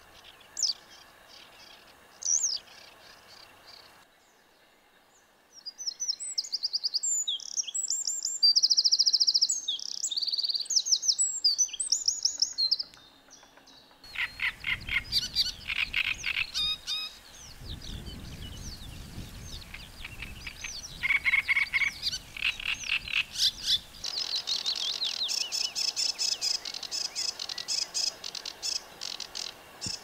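Short clips of bird song in succession. First a western yellow wagtail gives two brief calls. From about four seconds another songbird sings high, clear notes. From about fourteen seconds a great reed warbler sings in rapid repeated phrases, and from about twenty-four seconds a sedge warbler sings a fast run of notes.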